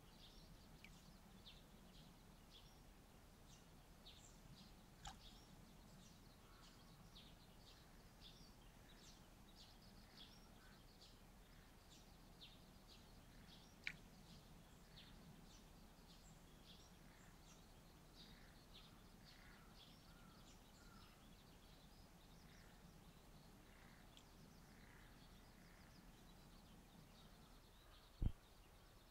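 Faint outdoor ambience of small birds chirping: many short, high chirps scattered throughout over a low steady hum. A single sharp click about halfway through and a low thump near the end.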